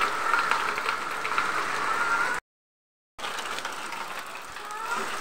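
Rain falling and water pouring off a roof: a steady hiss full of fine ticking drops. The sound cuts out completely for just under a second about halfway through.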